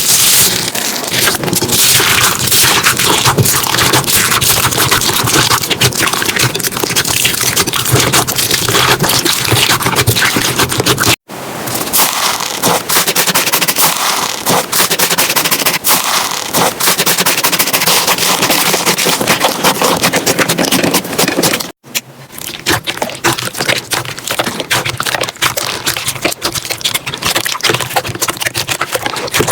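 Slime being squeezed, stretched and poked by hand, giving a dense run of crackling, popping and scraping. It breaks off for an instant twice, about 11 and 22 seconds in, as one clip gives way to the next.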